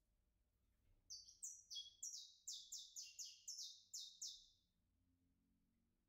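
Saffron finch (canário-da-terra) singing: a quick run of about a dozen sharp, high chirps, starting about a second in and stopping near the end.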